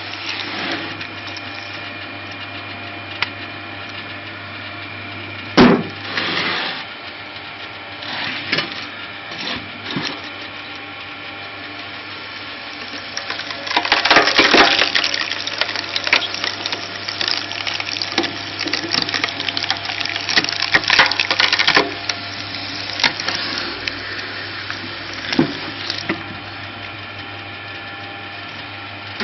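Screw log splitter, its threaded cone driven by a 4 kW motor through a 1:3 belt, running steadily while it bores into oak. There is a loud crack about six seconds in, and a long stretch of crackling, splintering wood from about halfway through that lasts some eight seconds as a round splits apart.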